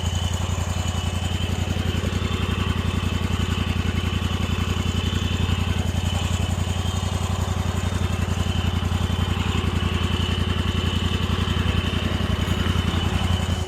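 An engine running steadily at a constant speed, with a low hum and rapid, even firing pulses.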